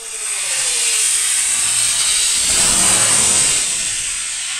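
Hobby rocket motor, a D16, burning as the model rocket climbs: a loud rushing hiss that builds over the first second, holds, and eases off near the end.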